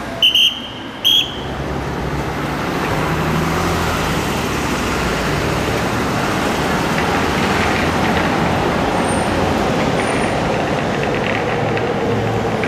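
Heavy road traffic on a busy trunk road, trucks and buses passing by at a level crossing with their engines and tyres making a steady noise that swells over the first two seconds. Two short high beeps sound in the first second and a half.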